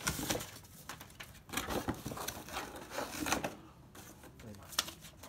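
Packaging being handled: irregular rustling, scraping and light knocks of cardboard and moulded pulp inserts on a wooden tabletop, quieter for a moment a little past the middle.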